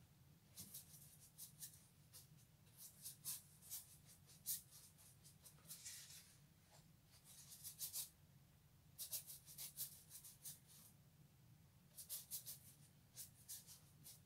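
Brush bristles on watercolour paper: clusters of quick, dry ticks and scratches that come and go every second or two, with a short grainy swish about six seconds in, over a faint low hum.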